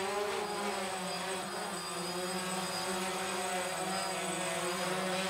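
Quadcopter drone's propellers buzzing steadily as it flies and hovers, a held multi-tone whine.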